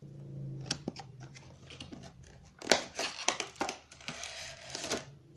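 Packaging of a Bluetooth headset box being opened and handled: crinkling and rustling with many sharp clicks and taps, the densest rustle near the end. A low hum sounds during the first second.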